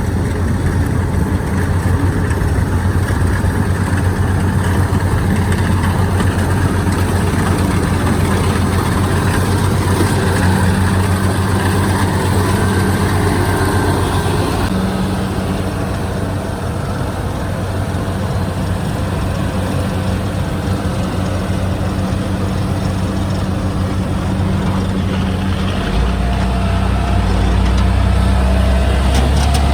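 Kubota DC-73 rice combine harvester's diesel engine running steadily while harvesting. A deeper low drone joins near the end.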